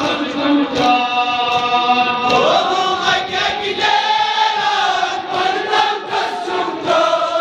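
A crowd of men chanting a Kashmiri noha, a Shia mourning elegy, together in long held lines with one rising swell a few seconds in. Sharp beats fall in time through it, the mourners' chest-beating (matam).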